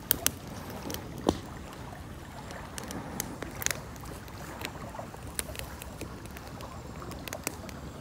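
Small wood fire of dry twigs crackling, with irregular sharp pops, over the steady rush of a flowing stream.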